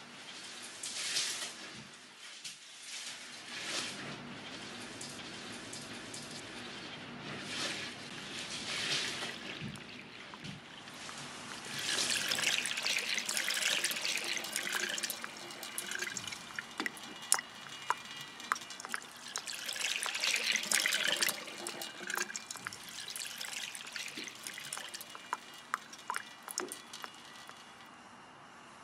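A cloth being hand-washed in a plastic basin of soapy water: wet squelching and sloshing as it is kneaded and squeezed, and water streaming back into the basin as the cloth is lifted. Many small drips fall in the second half.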